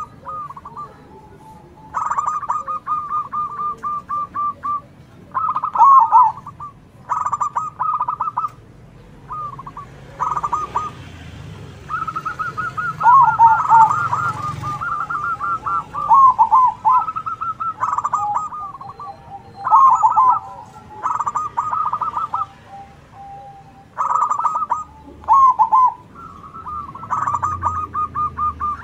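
Zebra doves singing: repeated phrases of rapid staccato cooing notes, each ending in a few lower, falling coos, one bird answering another, with phrases overlapping around the middle.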